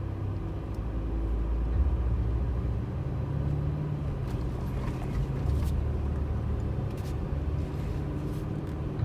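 Car engine running with a steady low hum that shifts slightly in pitch, with a few faint clicks.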